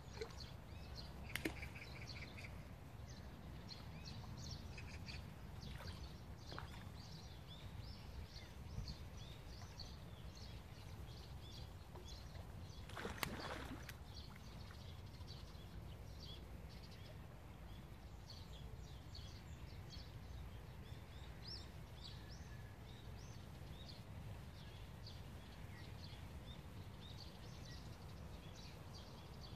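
Faint outdoor ambience: many short, high bird chirps over a steady low rumble. A few clicks come near the start, and a brief louder noise comes about halfway through.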